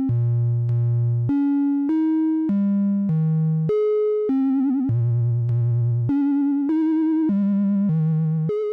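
Make Noise 0-Coast synthesizer's oscillator playing a repeating sequence of short, evenly spaced notes in a triangle-wave tone. About halfway through, vibrato comes in as the cycling Slope section frequency-modulates the oscillator through its linear FM input, and each note wobbles in pitch.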